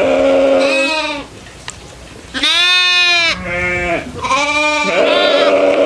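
Goats bleating, about five calls in a row of differing pitch, one noticeably higher and louder in the middle.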